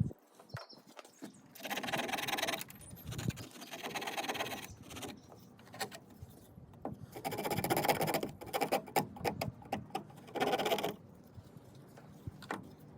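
Small saw blade of a Victorinox Fieldmaster Swiss Army knife sawing through a dry, degraded branch, in several runs of strokes with short pauses and a few light knocks between.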